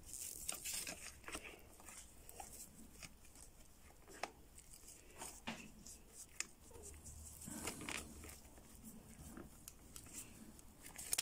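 Faint, scattered clicks and light scraping of gloved hands working a plastic wiring plug on the turbo solenoid valve.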